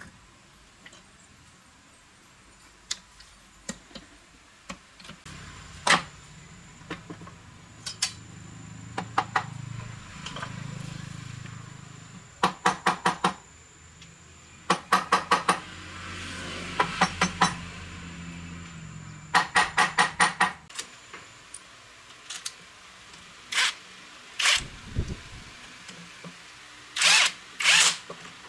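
Workshop tool sounds on metal: sharp clicks and taps, some in quick runs of five or six, over a low motor-like hum through the middle that stops about two-thirds of the way in.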